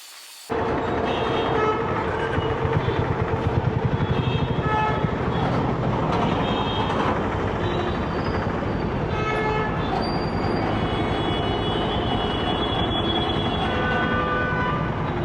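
Busy road traffic with engine and tyre noise, and repeated short vehicle horn toots at several different pitches. One horn is held longer near the end.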